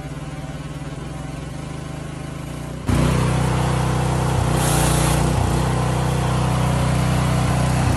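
Detroit 13 hp pressure washer's 389 cc single-cylinder petrol engine running steadily, stepping up to a louder run about three seconds in.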